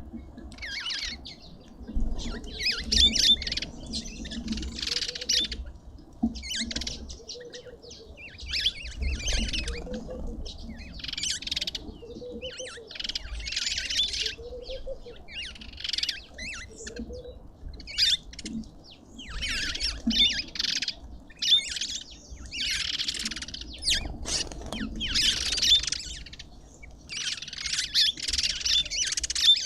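Birds giving high, squawking chatter in short bursts every second or two.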